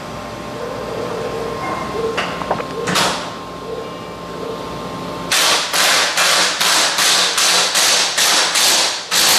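Pneumatic impact wrench worked in rapid short bursts, about four or five a second, starting about halfway through, after a few single knocks.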